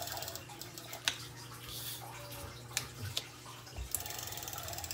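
Steady running-water trickle from an aquarium filter, with a few light clicks and taps as a double-sided tape dispenser is pressed and rolled along paper.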